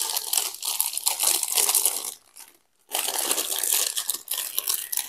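Clear plastic packaging bag crinkling as hands unwrap a foam-packed part, in two stretches with a short pause a little over two seconds in.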